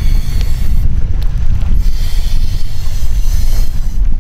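Wind rumbling on the microphone, with a man blowing by mouth into the valve of an inflatable kayak paddle float: long, breathy puffs with a pause between them.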